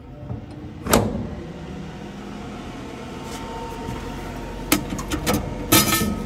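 Metal clunk about a second in from the Blacksmith steel rifle safe as its keypad lock is worked and the door opened, then a quick run of clicks and knocks near the end from hands working inside the steel cabinet.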